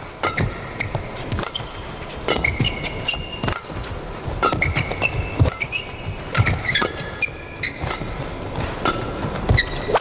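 Badminton rally: sharp racket hits on the shuttlecock and short, high squeaks of court shoes on the playing surface, repeated irregularly.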